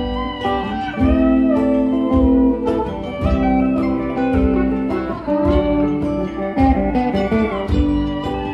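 Live band playing an instrumental passage: a guitar lead with bending, sliding notes over strummed acoustic guitar chords, conga drums and keyboard.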